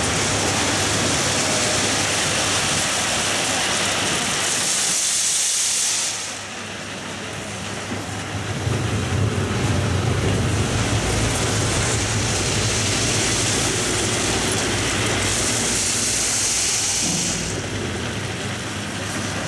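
Heavy diesel plant running while railway ballast stones slide and rattle out of a tipping wagon and are pushed about by bucket and blade. The engine hum grows louder about eight seconds in, and two stretches of hiss come through, about five seconds in and again near the end.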